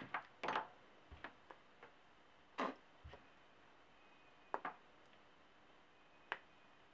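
Faint, scattered clicks and taps from small tools and wires being handled on a workbench cutting mat, with a couple of dull low knocks among them.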